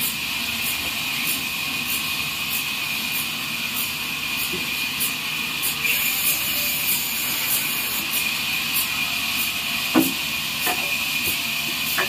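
Horizontal band sawmill running: a steady high hiss and thin whine from the band-saw blade, with a faint tick repeating a little under twice a second. There is one sharp knock about ten seconds in.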